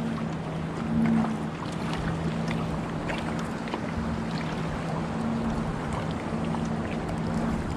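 Kayak paddling through calm water: small splashes and drips from the paddle blades over lapping water, with a steady low hum underneath.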